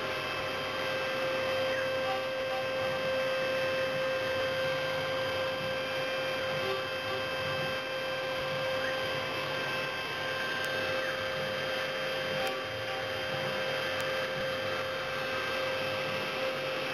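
CNC milling machine running steadily, its spindle giving a constant whine over the noise of milling a block of tooling board.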